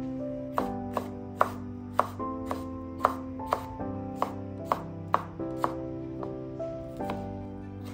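Chef's knife slicing a bell pepper into strips on a wooden cutting board: sharp knocks of the blade on the board about twice a second, over background music.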